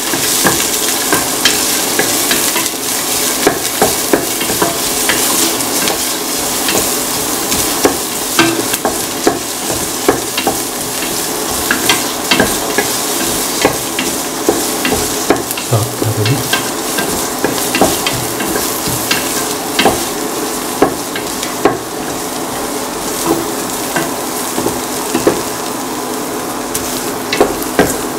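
Chopped onions and shallots frying in hot oil in a stainless steel pan, a steady sizzle, with the spatula scraping and knocking against the pan at irregular moments as they are stirred.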